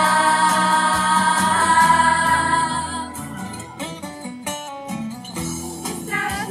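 Music: singing holding one long note for about three seconds, then plucked guitar notes, with the singing coming back near the end.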